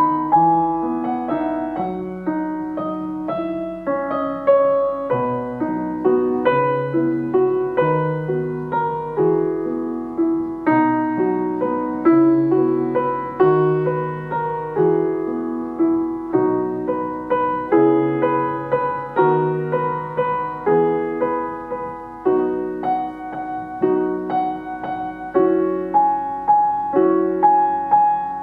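Background piano music: a slow, gentle melody over chords, each note struck and left to fade, at an even, unhurried pace.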